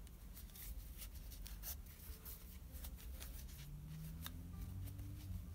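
Crochet hook working thick T-shirt yarn in single crochet stitches: soft, irregular rustling and rubbing of the fabric yarn, with light ticks as loops are pulled through.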